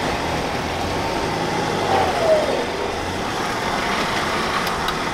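Four-wheel-drive engine running steadily during a winch recovery up a rocky track, with a brief falling whine about two seconds in and a few sharp clicks near the end.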